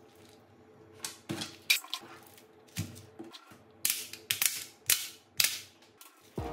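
Stretched rubber bands snapping off a phone one after another as the bands clamping its freshly glued back glass are released: a quick series of about eight sharp snaps.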